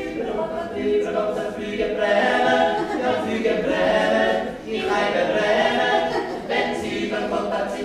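A small group of voices singing together unaccompanied, in phrases with short breaks between them.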